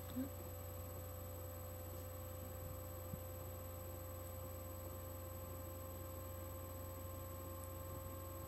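Steady low electrical hum with a few faint steady whine tones above it, the background noise of the recording, with a tiny brief sound just after the start.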